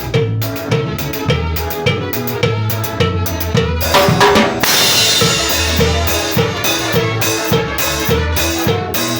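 Live band playing in rehearsal, led by drum kit and percussion with a steady beat, with a cymbal crash about halfway through.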